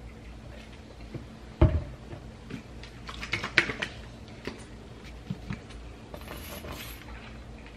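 A ketchup bottle set down on a granite countertop with a single knock about one and a half seconds in, then clicks and taps as a plastic mustard squeeze bottle is handled, and a short airy squirt from the squeeze bottle a little after six seconds.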